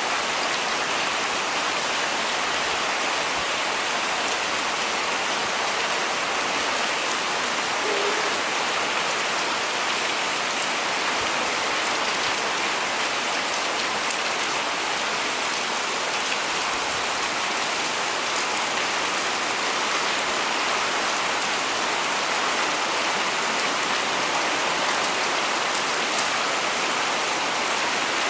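Steady heavy rain falling on surfaces, an even unbroken hiss of drops.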